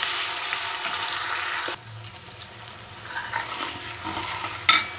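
Masala gravy sizzling in hot oil in a steel kadai as it is stirred with a steel ladle. The sizzle drops off abruptly a little under two seconds in and goes on more quietly, with one sharp clink near the end.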